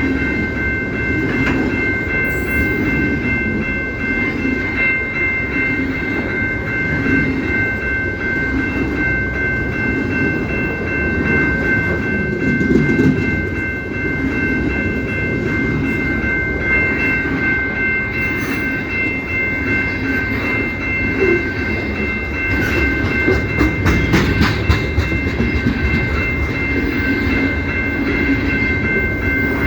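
Canadian Pacific train rolling past, its cars rumbling with clicks over the rail joints, more frequent in the second half. A steady high-pitched ringing of a few tones rides over it the whole time.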